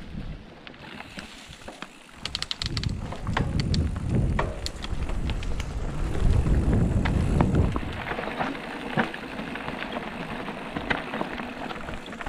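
Mountain bike riding a dirt single track, heard from a helmet camera: wind buffeting the microphone, heaviest for several seconds in the middle, over tyre noise on dirt and the frequent rattles and clicks of the bike's chain and frame over bumps.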